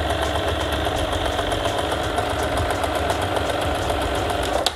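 Usha Janome Dream Stitch electric sewing machine running at a steady speed, its needle stitching in reverse with the reverse button held down. It stops abruptly near the end.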